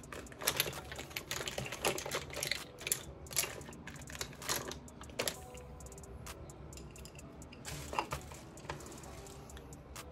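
Brush strokes through gelled hair: a run of irregular scratchy clicks, busiest in the first half and again near eight seconds in.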